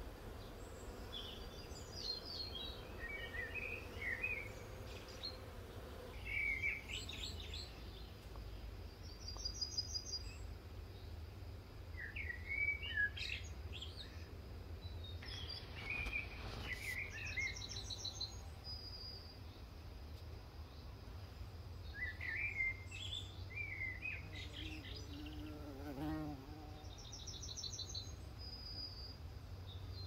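Several wild songbirds singing in short, scattered phrases and quick trills over a steady low rumble, with a brief low buzz near the end.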